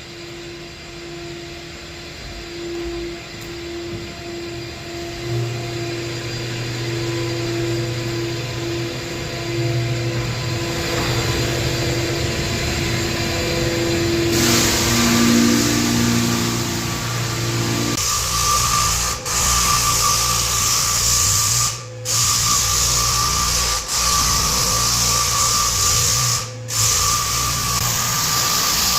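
Hardwood floor sanding machines running, a steady motor hum that grows louder and harsher about halfway through, with a high steady whine and a few brief dropouts near the end.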